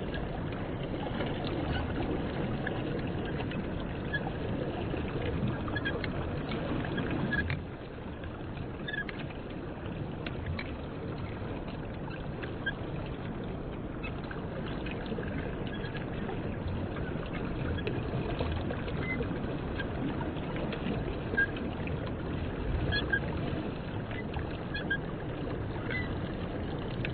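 Water sloshing and gurgling continuously as a homemade ping-pong-ball topwater lure is swum across the surface, with scattered small clicks and short high notes over it; the sound briefly drops about seven seconds in.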